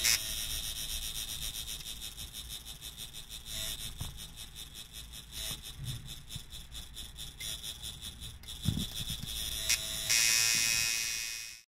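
Coil tattoo machine buzzing as its speed controller dial is turned. The buzz slows to a softer pulsing through the middle, then jumps to a loud, fast, steady buzz about ten seconds in and cuts off abruptly just before the end.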